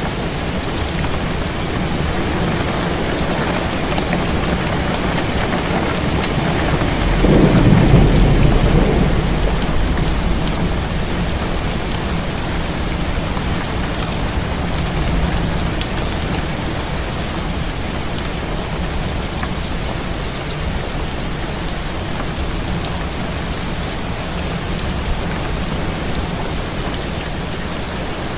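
Heavy rain falling steadily on a window. About seven seconds in, a deep roll of thunder swells and then fades away over a few seconds.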